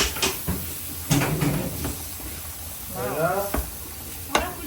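Kitchen clatter: a few sharp clicks and knocks, like a cupboard door or utensils being handled, with a short stretch of voice about three seconds in.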